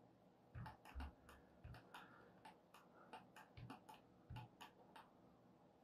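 Computer mouse clicks and scroll-wheel ticks while navigating a 3D viewport: an irregular run of faint, sharp clicks, a few with a soft thump, stopping about five seconds in.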